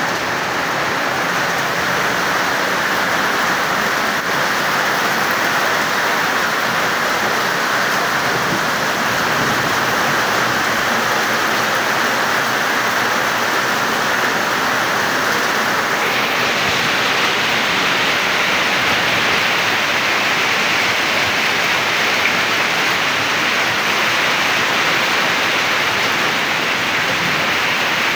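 Heavy rain pouring down steadily onto puddled ground, with runoff streaming off a roof edge. The hiss turns brighter a little past halfway.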